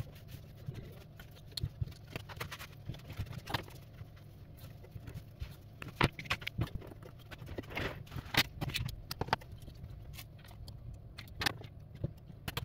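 Scattered small clicks and taps of hands and tweezers working on a disassembled smartphone on a silicone repair mat, over a steady low hum.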